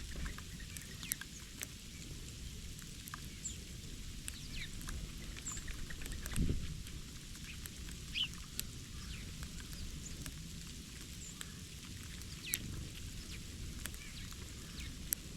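Small birds calling with short high chirps and quick falling notes, over scattered sharp clicks and a steady low rumble. A soft thump comes about six and a half seconds in.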